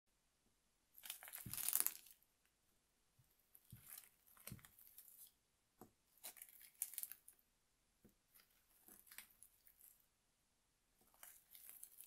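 Dry leaves being crushed, crackling and rustling in about five separate bursts a couple of seconds apart; the first, about a second in, is the loudest.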